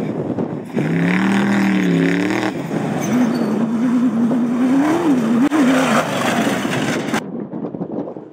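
Off-road race vehicle engines running hard, the engine pitch wavering and rising and falling as the vehicles go by. The sound changes abruptly about a second in, again about halfway through, and near the end, as different vehicles are heard in turn.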